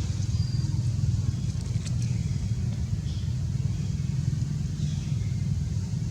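Steady low rumble, with a few faint high chirps and a thin high-pitched tone near the start.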